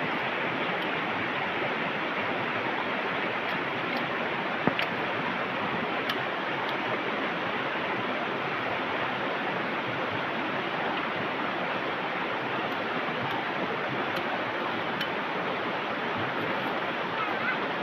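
Steady rush of flowing water, with a single sharp click about five seconds in.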